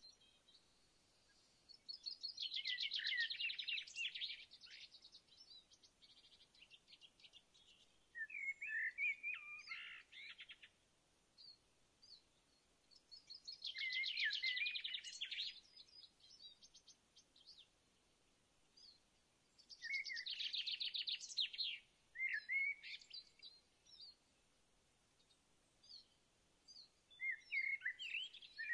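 A songbird singing short phrases about every six seconds, each a rapid trill followed by a few lower warbled notes.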